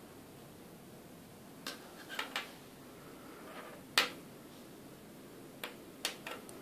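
A handful of small, sharp plastic clicks and taps as a Samsung S Pen stylus is handled, the loudest about four seconds in.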